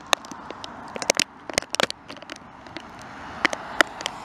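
Rain and gusting storm wind hitting the microphone: irregular sharp crackles and clicks, several a second, over a steady rushing background.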